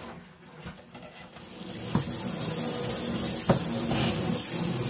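Water running from a tap into a sink, building up about a second in and then steady, with two short knocks.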